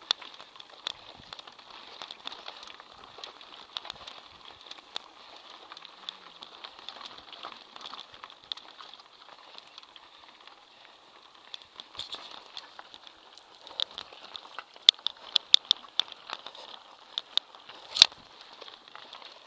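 Mountain bike rolling over a rocky dirt trail: tyres crunching on loose stones, with the bike and its handlebar-mounted camera rattling and clicking over the bumps. The knocks come thicker and sharper over the last third.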